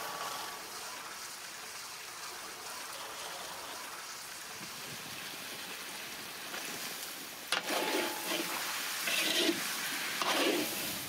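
Chopped vegetables and beef tripe sizzling in oil in a large kazan cooking pot. About seven and a half seconds in there is a sharp knock, then a metal skimmer scrapes and clinks against the pan as the food is stirred.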